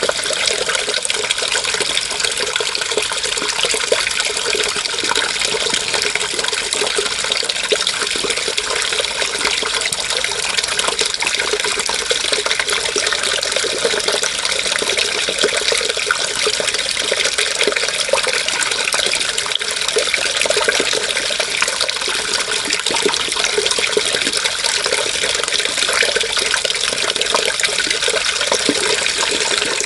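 Water running steadily, a continuous rushing splash that does not change or pause.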